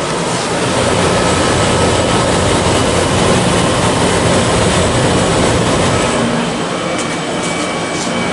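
1993 Comfort-Aire window heat pump running in cool mode just after startup, its reciprocating compressor and fan giving a loud, steady rush of air over a low hum. About six seconds in, a few steady tones join the sound.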